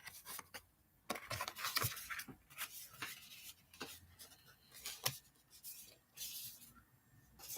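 Irregular rustling, tapping and clicking as product packaging and small cosmetic containers are handled.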